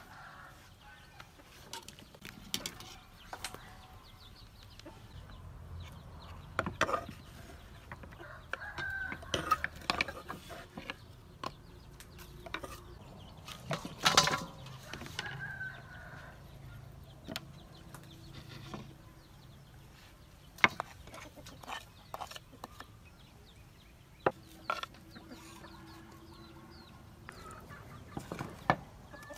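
Chickens clucking in the background, between scattered clicks and knocks of utensils and food against a metal bowl. About fourteen seconds in comes a loud clatter as boiled chicken feet are tipped from a plastic colander into a steel bowl.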